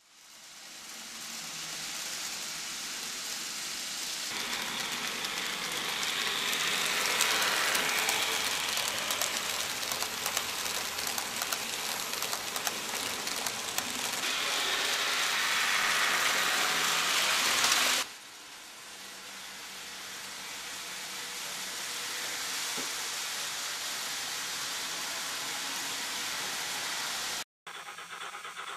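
A steady hissing rush of noise that swells over the first few seconds, drops abruptly about eighteen seconds in, then builds again and cuts out for a moment near the end.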